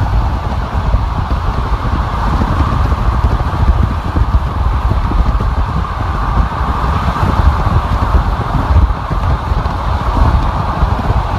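Steady road and wind noise of a car driving on a freeway: a continuous rumble with an even hiss above it.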